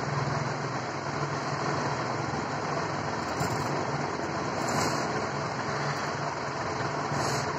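Steady whirring hiss of an electric room air cooler's fan running, with a low hum from its motor.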